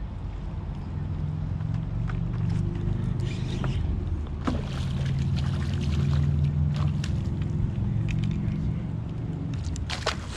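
A boat's inboard engine running with a steady low drone that swells a little in the middle. A hooked sheepshead splashes at the surface, with a few short clicks and splashes over the engine.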